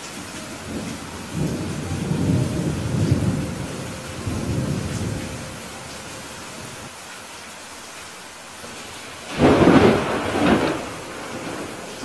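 Steady rain with thunder: a low rolling rumble builds about a second and a half in and fades after the middle, then a sudden, louder thunderclap breaks near the end.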